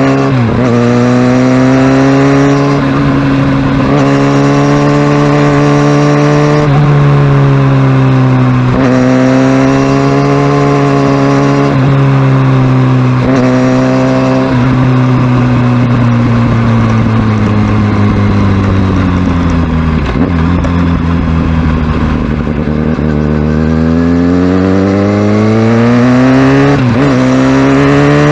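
Kawasaki Ninja ZX-6R's inline-four engine on the move, pulling through the gears. The pitch climbs and drops back sharply at each shift, several times. About two-thirds through it falls away in a long slowdown, then climbs again as the bike pulls away.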